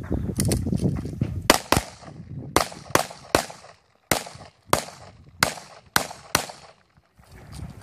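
A rapid string of pistol shots, about ten in all, some in quick pairs, roughly half a second apart. A low rumble runs under the first second and a half.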